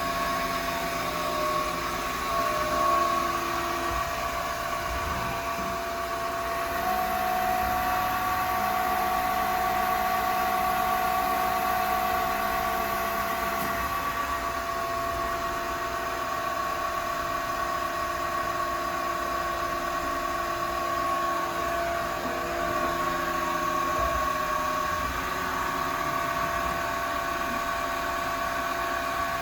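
Studer S33CNC CNC cylindrical grinder running, a steady machine hum made of several steady tones. A second, higher whine joins about a quarter of the way in and drops out around the middle.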